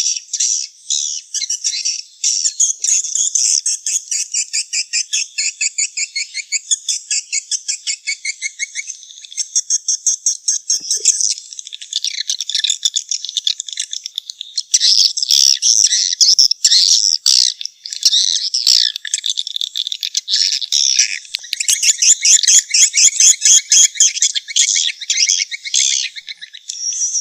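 Swiftlet calls, the kind used as a lure sound for swiftlet nest houses: fast, high-pitched chittering trills repeating many times a second, continuous with only brief breaks.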